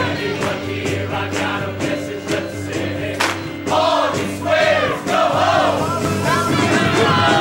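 A show choir singing with a live band: massed voices over bass and drums, with a steady beat.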